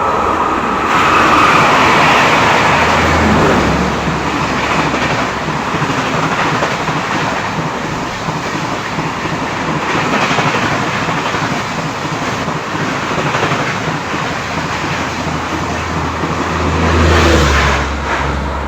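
A train passing close by: steady, loud running noise of the wheels on the rails with a low rumble underneath, swelling again near the end.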